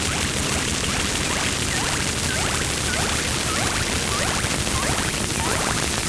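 Experimental noise music: a dense, steady wash of hissing, crackling noise, with many quick short chirps darting through it.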